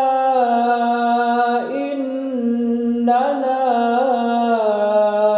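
A man's voice reciting the Quran in melodic murottal style, holding the long vowels of 'rabbanā' and 'innanā' as drawn-out, ornamented notes. A new phrase begins about three seconds in.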